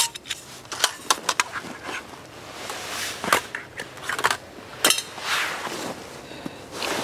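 Gear being handled at a canvas haversack: a string of sharp clicks and knocks, with fabric rustling about five seconds in.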